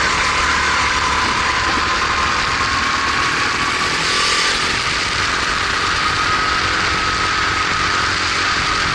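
Kart engine running hard on track, heard onboard, its note climbing slowly and easing slightly near the end, over a steady rush of noise.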